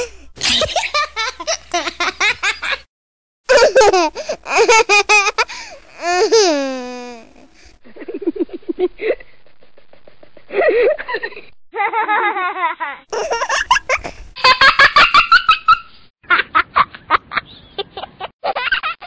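Babies laughing in a string of short clips spliced one after another: bursts of giggles and belly laughs, one with a squeal that falls in pitch. Each clip has a different recording quality, and they change abruptly.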